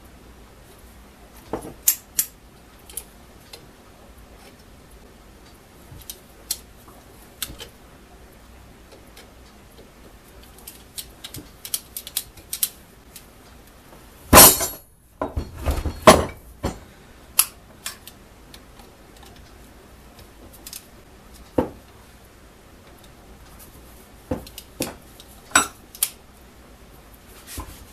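Hand tools clicking and clinking against the metal bolts and housing of a rotary hammer as its front housing bolts are worked in. The clicks come at irregular times, with a louder clatter about halfway through.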